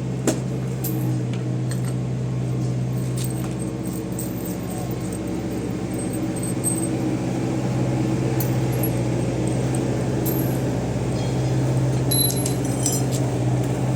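A steady low mechanical hum, with light metallic clinking and jingling near the end.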